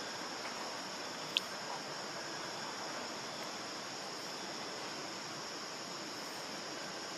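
Steady high-pitched drone of an insect chorus over outdoor background noise, with one short sharp high squeak about a second and a half in.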